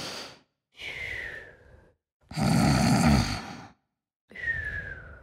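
Cartoon snoring sound effect: a rasping snore on the in-breath followed by a thin, falling whistle on the out-breath, heard twice.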